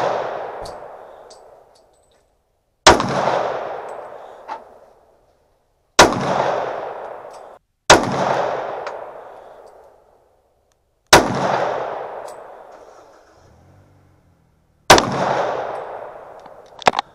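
Smith & Wesson .40 caliber pistol fired in slow, deliberate single shots, five in all, spaced two to four seconds apart, each with a long echoing tail that dies away over a second or two. A lighter sharp crack comes near the end.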